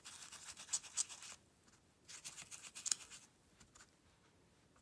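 Foam sponge scrubbed and dabbed over a plastic stencil on cardstock, sponging ink through the mask: two bouts of dry scratching, each about a second long, with a few sharp ticks, then quiet.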